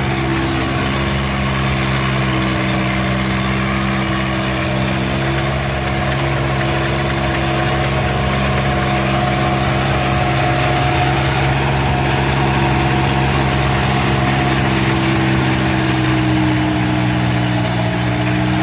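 VST Shakti Mitsubishi mini tractor's diesel engine running steadily under load, driving a heavy rotavator that tills the soil. The engine note holds level and sags a little near the end.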